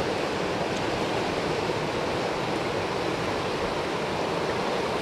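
The Lehigh River running high and fast, swollen by heavy rain: a steady, even rush of floodwater.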